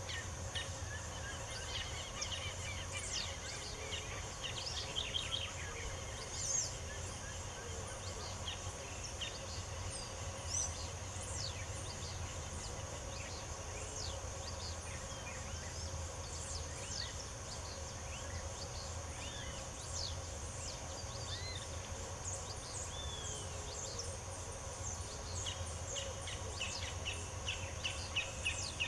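Several songbirds chirping and singing in short, quick phrases, over a steady high-pitched insect drone and a low background rumble.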